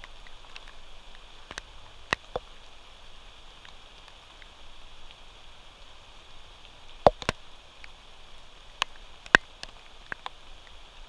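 Rain: a steady hiss with irregular sharp taps, about nine of them, close to the camera, the loudest about seven and nine seconds in.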